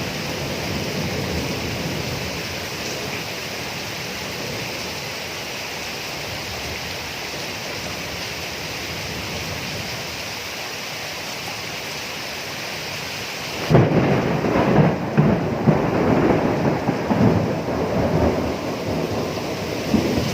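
Steady rainfall, then about two-thirds of the way in a sudden loud thunderclap that goes on rumbling and rolling over the rain.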